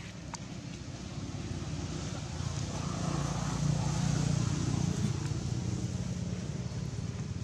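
A motor vehicle passing by, its low engine sound building to a peak about four seconds in and then easing off.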